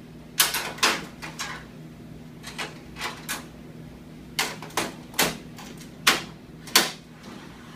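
Metal clicks and clunks from an x-ray wall bucky's cassette tray as a 14 by 17 image receptor is slid in and the tray's holders are pushed shut around it: about a dozen sharp knocks at uneven spacing, with a louder one at the very end.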